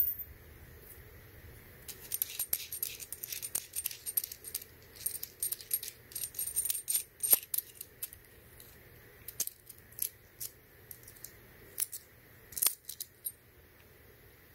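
Small metal parts of an LDK pencil soldering iron clicking and clinking as its tip is changed: the barrel nut is unscrewed and the steel tip and barrel are handled. The light clicks come in irregular clusters and stop near the end.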